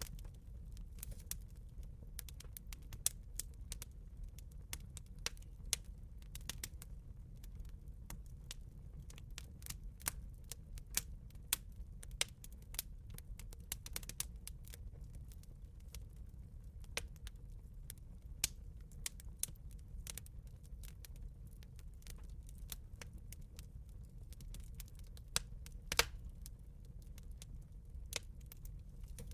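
Wood campfire crackling, with irregular sharp pops and snaps over a low steady rumble of the burning fire; one of the loudest pops comes about 26 seconds in.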